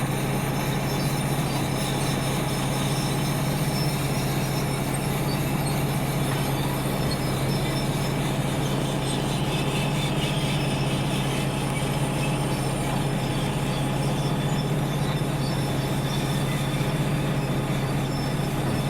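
Volvo EC250 hydraulic excavator's diesel engine running at a steady speed, a constant low hum with no revving.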